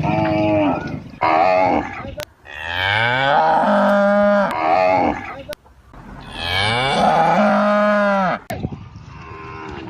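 A calf mooing: two short calls, then two long drawn-out moos whose pitch rises and then falls.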